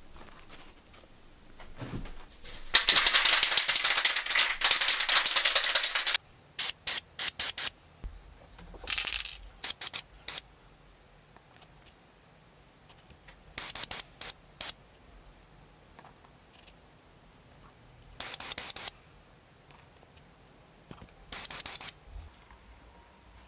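Aerosol spray can of primer hissing: one long spray of about three and a half seconds, then a quick run of short squirts and a few half-second sprays spaced several seconds apart.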